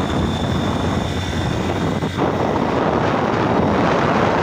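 Older motorbike's engine running steadily under load on a steep hill road, mixed with wind rushing over the microphone.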